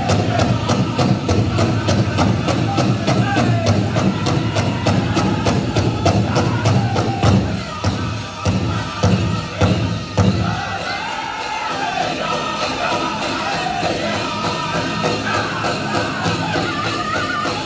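A powwow drum group sings a chicken dance song over a fast, steady drumbeat. Around the middle come a few heavy, spaced beats, after which the drumming is lighter under the singing.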